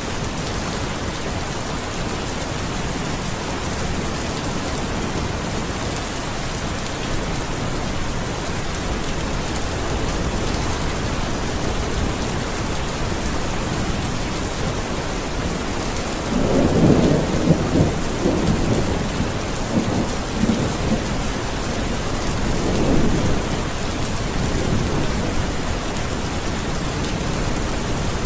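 Steady rain falling. A deep roll of thunder rumbles for a few seconds a little past the middle, and a shorter rumble follows a few seconds later.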